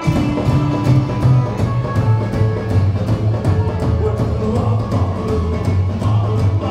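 A live rock and roll band playing: drum kit keeping a steady beat, a strong upright double bass line, and electric and acoustic guitars.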